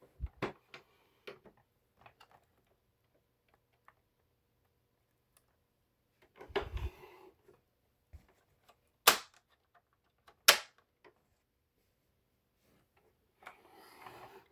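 Scattered handling clicks and knocks with no motor running: a few light clicks at the start, a dull knock with rustling around the middle, then two sharp clicks about a second and a half apart.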